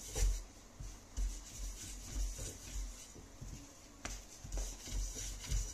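A long, thin wooden rolling pin (oklava) rolling and rubbing over floured dough on a silicone mat, with soft, irregular thumps as it is pushed back and forth and a sharper knock about four seconds in.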